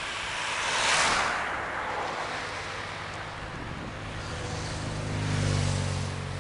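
Road traffic with wind on the microphone: a vehicle passes with a rush of tyre and wind noise about a second in, then a low engine drone builds near the end as a truck approaches.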